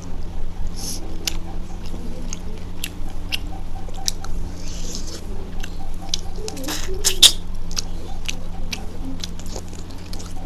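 Close-miked chewing of rice and mutton curry eaten by hand: wet mouth clicks and lip smacks in an irregular run, with a louder wet smack about seven seconds in. A steady low hum sits underneath.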